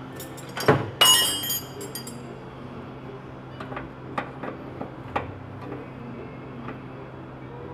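Metal hand tools clinking: a wrench clanks and rings against other tools about a second in, then a few light ticks as it works the brake line fitting on the caliper.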